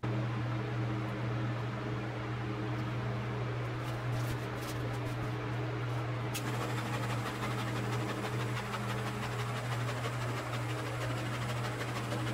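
Steady low electric-motor hum, consistent with a tumbler cup turner spinning a freshly resin-coated cup. About six seconds in, a faint high whine and light ticks join it.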